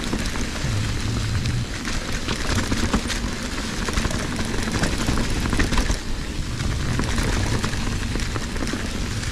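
Fezzari Cascade Peak mountain bike rolling along a leaf-covered dirt trail: steady tyre noise over leaves and dirt, with many small clicks and rattles from the bike.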